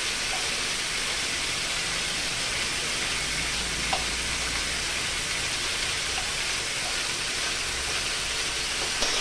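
Chicken pieces sizzling steadily in hot oil in a nonstick frying pan over a high gas flame, the meat's released water now cooked off so it is frying rather than stewing.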